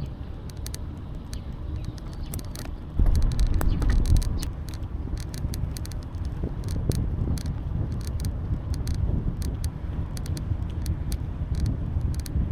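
Wind buffeting the microphone of a bicycle on the move, with a stronger gust from about three seconds in, and many light clicks and rattles from the bike throughout.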